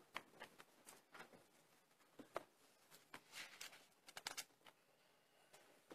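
Near silence in a church, with scattered faint clicks and rustles as the choir stands and opens its music folders.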